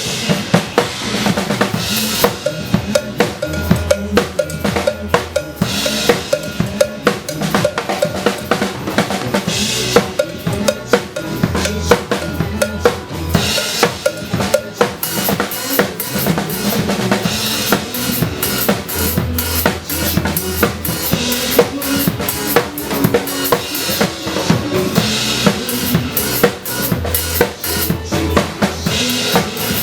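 Drum kit played hard and busy, with bass drum, snare and rimshot hits in a steady fast rhythm over a backing track with a bass line, in an instrumental break of a pop song.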